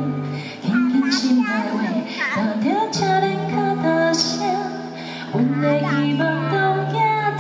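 Live music over a PA system: long held accompaniment chords that change every second or two, with a woman singing over them.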